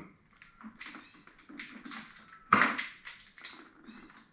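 Hands peeling cooked yabbies (freshwater crayfish): shells cracking and tearing in a run of irregular crunches and clicks, the loudest crack about two and a half seconds in.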